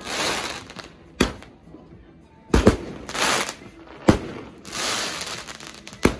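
Consumer aerial fireworks going off: four sharp bangs spaced about a second and a half apart, with a hissing, crackling spray of bursting stars between them.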